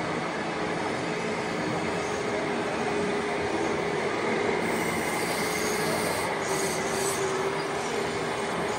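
Radio-controlled model construction machines working, a tracked bulldozer and an excavator: a steady whine of small electric motors and gearing over a constant mechanical noise.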